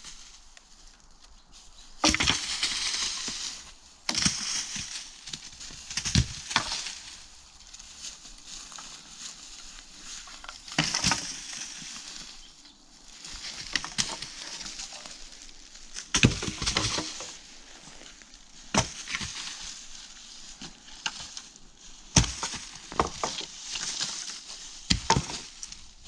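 Dry wood being broken up by hand: sharp snaps and cracks of sticks and branches at irregular intervals, with crunching and rustling between them.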